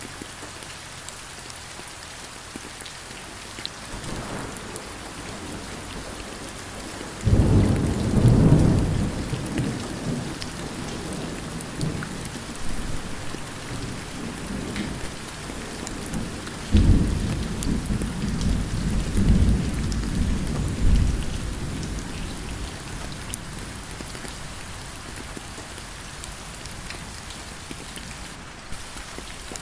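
Steady rain with two loud rolls of thunder: the first breaks suddenly about seven seconds in, after a faint rumble, and dies away over a few seconds; the second breaks about ten seconds later and rumbles in several surges before fading.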